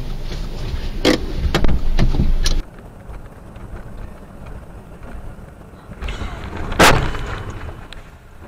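Dash-cam recording from inside a moving car: loud low road and wind rumble with three knocks, then quieter road noise broken by one sharp, loud bang near the end, the impact of a car collision.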